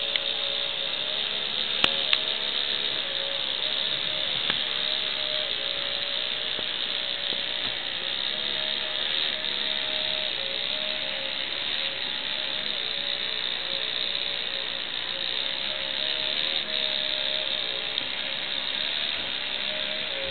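Small Fischertechnik electric motor driving the Ferris wheel through plastic gears and a chain, running steadily with a whine that wavers slightly in pitch over a mechanical whirr. A couple of sharp clicks about two seconds in.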